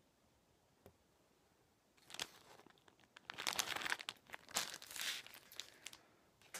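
Clear plastic soft-bait packaging crinkling and rustling as it is handled, starting about two seconds in and lasting about four seconds, after a single light click.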